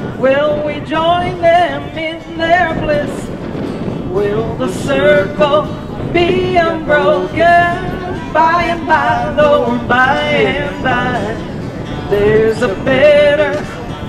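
Live acoustic country band: a woman singing into a microphone over acoustic guitar and upright bass.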